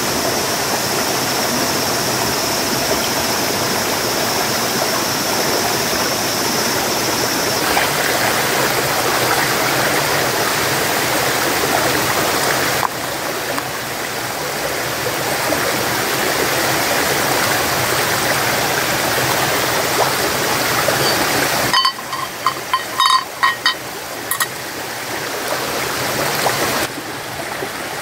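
Steady rush of running water, with a thin high steady tone over the first several seconds. A few short ringing clinks come about three quarters of the way through.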